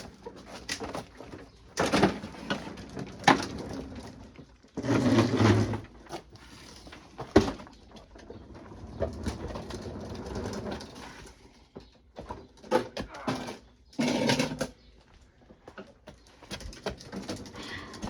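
Scattered knocks, clunks and scraping from a lawnmower and petrol can being fetched and handled, with a pigeon cooing.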